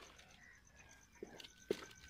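Flat metal spatula stirring thick lentil-and-egg dal in an aluminium pot: a soft scraping, then two sharp knocks of the spatula against the pot in the second half, the second one louder.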